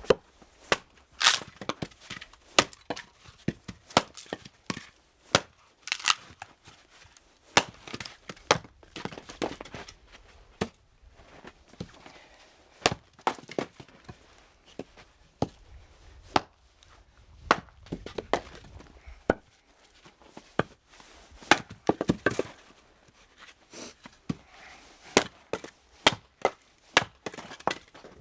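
Irregular series of sharp chopping knocks on wood, several a second at times with short pauses.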